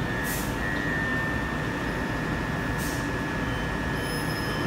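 Southern Class 377 Electrostar electric multiple unit running, a steady rumble under a held high-pitched tone. Two short hisses come through, one near the start and one about three seconds in.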